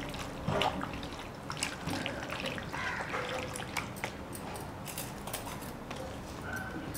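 A bare hand squishing and turning chunks of chicken in a thick yogurt marinade, giving irregular wet squelches and small clicks.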